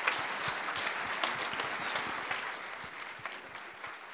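Audience applauding, dying away over the last couple of seconds, with a brief high whistle about two seconds in.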